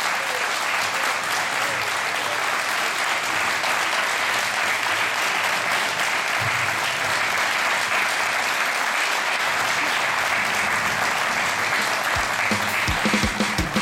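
Audience applauding, a steady sustained clapping. Near the end, a music beat starts to come in under it.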